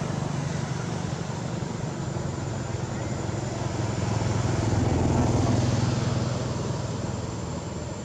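A motor vehicle's engine running in the background with a steady low hum, growing louder to a peak about five seconds in and then fading, as if passing by.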